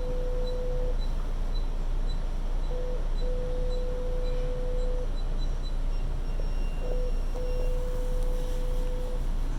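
Constant electronic beeping on a subway train: a single mid-pitched tone repeating as a short blip followed by a long beep of nearly two seconds, three times, about every four seconds, over the train car's steady low hum. Faint quick ticking runs under it for the first half.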